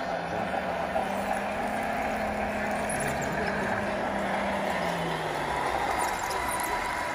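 Radio-controlled model trucks and construction machines running: a steady motor drone over a constant wash of noise, its pitch sagging briefly about five seconds in.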